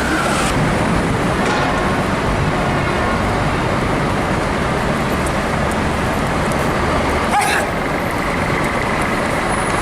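Steady city street traffic noise, with one brief sharp sound about seven seconds in.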